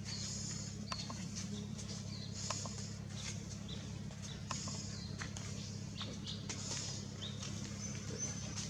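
Short, high-pitched animal chirps and squeaks with scattered small clicks, and hazy high bursts about every two seconds, over a steady low hum.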